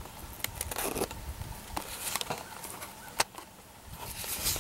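Dry leaves and brush crackling, with scattered sharp clicks over a low outdoor rumble. The sharpest click comes a little after three seconds in.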